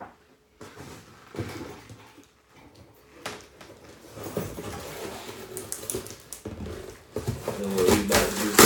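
A large cardboard shipping box being handled: flaps and packing rustling and knocking in short, scattered bursts, with a louder burst of handling noise near the end.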